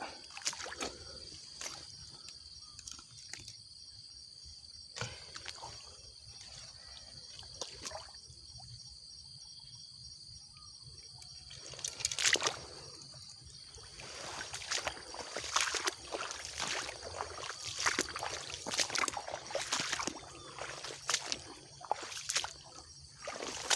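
Footsteps crunching and rustling through dry grass and leaf litter at a canal's edge, irregular, starting about halfway through after a quieter stretch with only a few scattered clicks. A faint steady high-pitched hum sits under it throughout.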